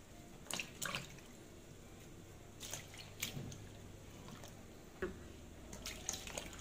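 Water splashing and dripping softly as hands swish enoki mushrooms around in a steel bowl of water to wash them, in a few short, scattered sloshes.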